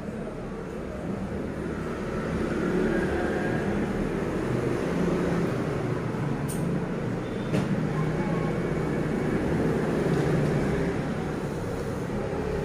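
Steady low rumbling background noise, with two short clicks about six and a half and seven and a half seconds in.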